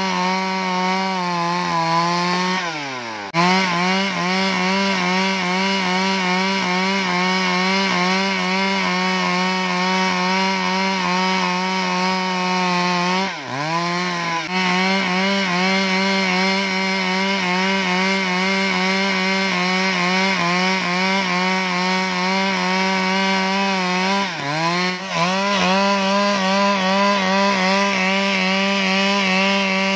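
Stihl 382 two-stroke chainsaw running at high revs as it rips lengthwise through a squared timber. The engine pitch drops sharply and climbs back three times, about 3, 13 and 24 seconds in.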